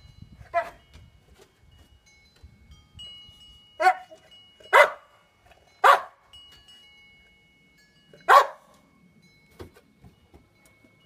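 Boxer dog barking: five short, sharp barks at irregular gaps, the first one weaker.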